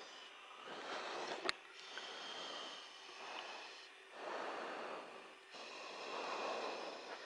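Breathing on an open headset microphone: hissing breaths of about a second each, three times, some cut off sharply, with one sharp click about one and a half seconds in.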